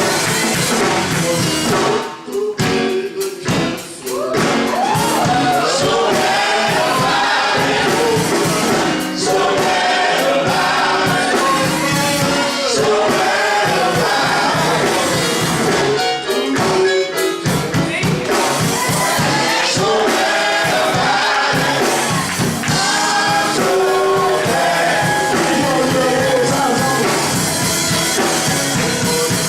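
Gospel choir singing, with short breaks between phrases.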